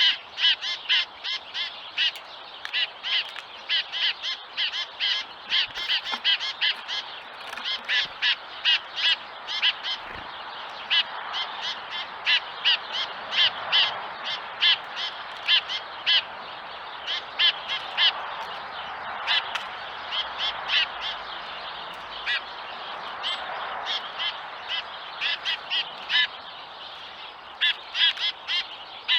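Small songbirds calling: a steady run of short, sharp call notes, about two or three a second, with chickadee and tufted titmouse calls among them.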